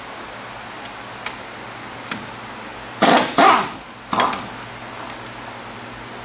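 Metal tools and brake parts being handled during caliper and bracket removal on a car's brake corner: a few light clicks, then three loud, short bursts of metal clatter about three to four and a half seconds in, over a steady shop hum.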